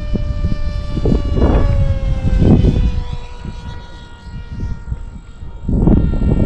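Whine of an RC flying wing's brushless motor and pusher propeller (2212 1400 kV motor, 7x5 prop), its pitch sliding down a little a few seconds in. Gusty wind rumbles on the microphone over it, in several loud swells.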